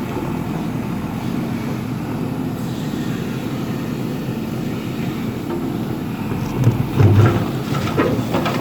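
JCB backhoe loader's diesel engine running steadily under work. Two louder low thumps come about seven seconds in.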